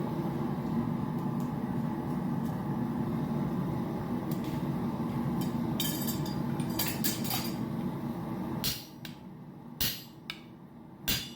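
A forge running with a steady rushing noise and a few metal clinks. About nine seconds in, the noise drops and two sharp hammer strikes ring out on a punch driven into the hot titanium.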